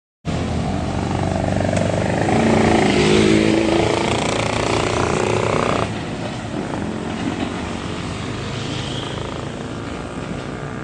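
Kubota U50 mini excavator's diesel engine running under load. Its pitch rises and it grows louder for a few seconds, then drops suddenly about six seconds in and carries on lower.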